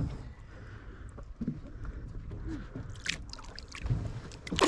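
Low wind rumble on the microphone and light water movement at the side of a boat, with a few faint low mutters; a loud rushing noise starts at the very end.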